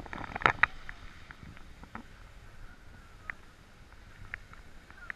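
Skis sliding over packed, groomed snow on a downhill run: a soft steady swish, with a few sharper scrapes in the first second and a few light clicks later on.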